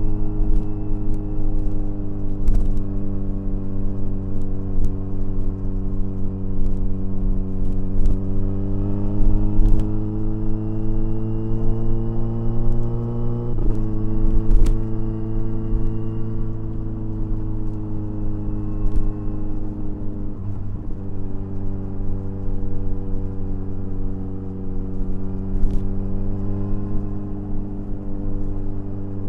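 Kawasaki Ninja 1000SX inline-four engine running under a steady light throttle, its note climbing slowly and then dropping sharply about halfway through as it shifts up a gear, with another small change in pitch about two-thirds of the way in.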